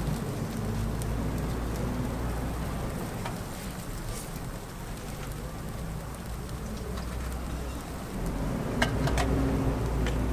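Steady low rumble of street background noise with a faint hiss, and a couple of sharp clicks near the end as a clear plastic takeout container is handled.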